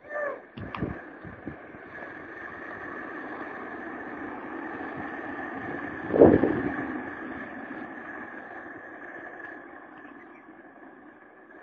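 Steady rolling road noise with wind on the microphone, swelling loudest about six seconds in. A few knocks near the start.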